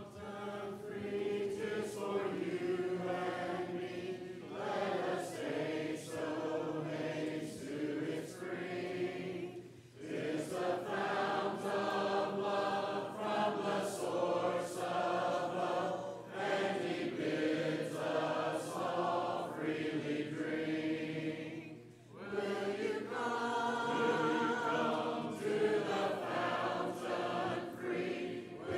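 Church congregation singing a hymn a cappella, many voices together in long sung phrases with short breaks between lines, clearest about ten seconds in and again near twenty-two seconds. This is the invitation hymn sung standing at the close of the sermon.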